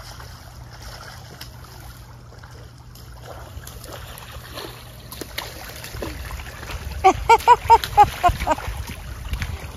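Splash-pad water spraying and splashing. About seven seconds in, a quick run of about ten short, high-pitched calls rises above it.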